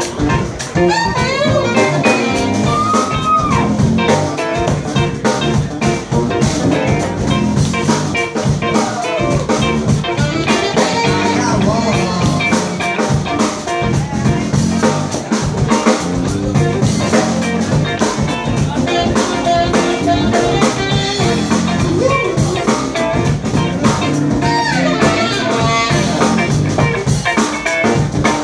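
Live band playing a blues-style number on electric guitars, bass guitar and drum kit, loud and unbroken.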